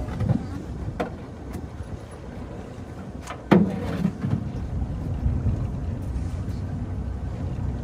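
Low steady rumble of a work boat's engine with wind on the microphone, and a few sharp knocks and clunks as a gill net is hauled aboard, the loudest about three and a half seconds in.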